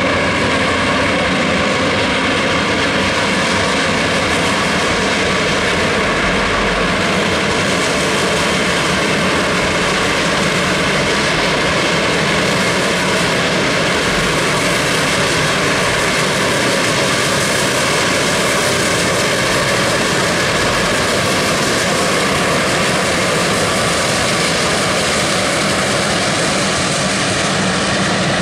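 Heisler No. 6 geared steam locomotive working past with a train of open passenger cars: a loud, steady, continuous exhaust roar that does not let up, with the cars rolling by behind it.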